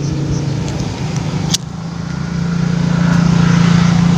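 An engine running steadily nearby, a low hum that grows louder over the last couple of seconds. There is a single sharp click about one and a half seconds in.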